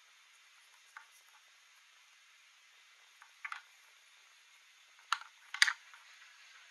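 Carved wooden toy wheels being set down and moved on a wooden tabletop: a few light wooden clicks and knocks, the loudest pair close together near the end, over a faint steady hiss.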